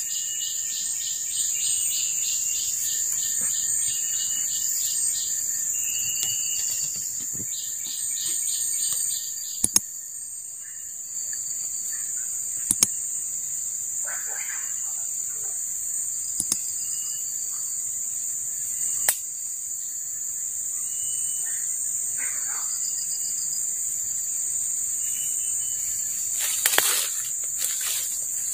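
Rainforest insect chorus: a steady high-pitched insect drone throughout, with a rapid pulsing insect call over the first nine seconds and scattered short chirps. A few sharp clicks, and leaves rustling near the end.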